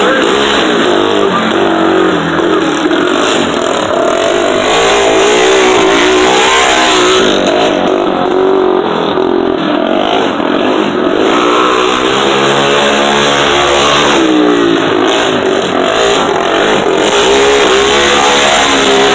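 Racing lawn tractor engines running hard, their pitch rising and falling repeatedly as they lap a dirt track, with one tractor passing close near the end.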